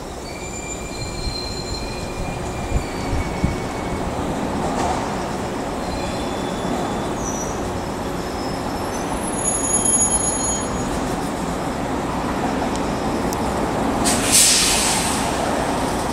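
KuMoYa 143 electric service car rolling on the track: a steady wheel rumble with thin, high flange squeals coming and going. Two sharp knocks come about three seconds in, and a brief hiss near the end.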